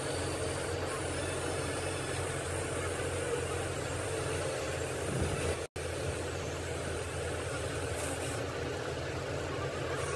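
An engine running steadily with a low, even rumble, broken by a brief gap about halfway through.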